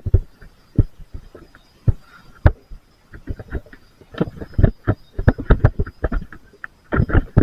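A run of irregular dull thumps and knocks, sparse at first and then closely bunched, with a faint steady high tone behind them.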